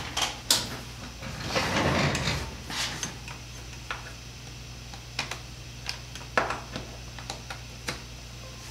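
Metal tool chest drawer sliding and being rummaged through, with a couple of sharp clicks and a burst of rattling in the first two and a half seconds. Then a few scattered light clicks and taps as USB cables are handled and plugged in, over a steady low hum.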